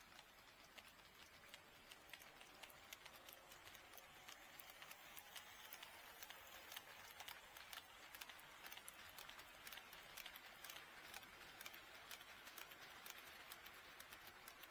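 HO scale model train wheels clicking over the rail joints of KATO Unitrack: faint, quick, irregular ticking that grows denser and a little louder about a third of the way in.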